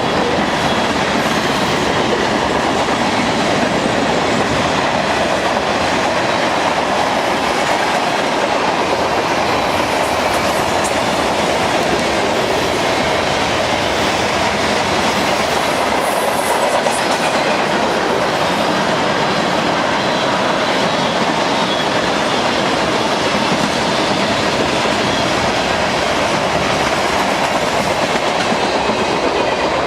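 BNSF train rolling past at a railroad crossing, its wheels running on the rails in a steady, loud noise.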